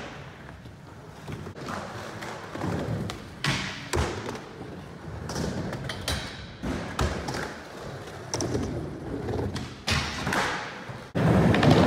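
Skateboard wheels rolling on a hard skatepark floor, broken several times by sharp clacks and thuds of the board popping and landing. Just before the end the board grinds along a metal handrail, and the loudest impacts come near the end.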